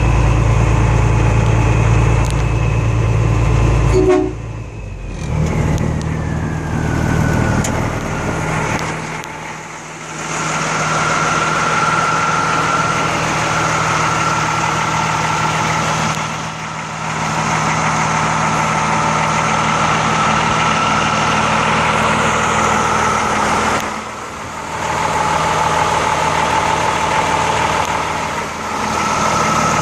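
M35A2 truck's turbocharged multifuel inline-six engine running, with the high, steady turbocharger whistle the truck is nicknamed for. About four seconds in the engine note drops and the whistle glides down in pitch, then holds steady at the lower note.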